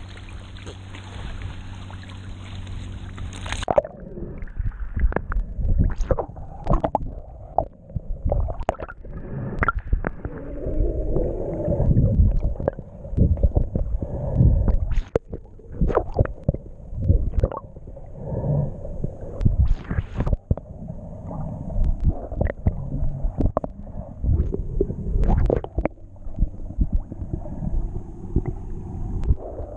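A camera dipped into the sea: the open-air hiss of wind and water at the surface cuts off about four seconds in. It gives way to muffled underwater sound, water moving and gurgling around the camera housing, with frequent knocks and thumps.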